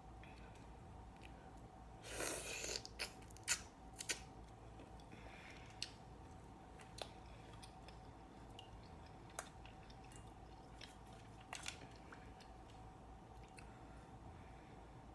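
Close-miked eating of a seafood boil of shrimp and mussels. A brief crackly rustle about two seconds in, like a shell being peeled or cracked, is followed by a few sharp clicks and then scattered single clicks and smacks, over a faint steady hum.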